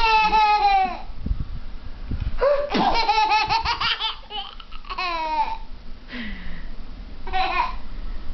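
Small child laughing in high-pitched squealing bursts, about four of them, the longest a run of quick laughs a few seconds in.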